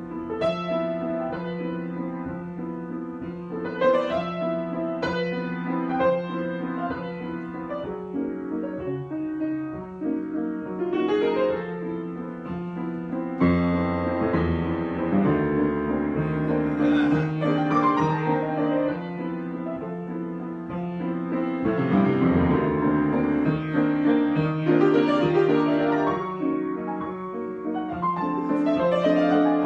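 Solo piano improvisation: flowing arpeggios that sweep up the keyboard again and again over held chords, with deep bass notes entering about halfway through and again later.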